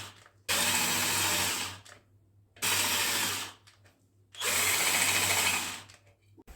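Power drill run in three short bursts of about a second each, stopping between them.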